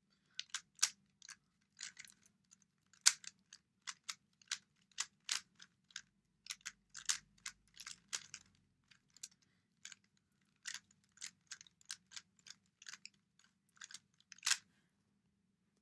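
A Rubik's Cube being turned quickly by hand: plastic layers clicking and clacking in irregular runs, often several turns a second, with a louder clack near the end.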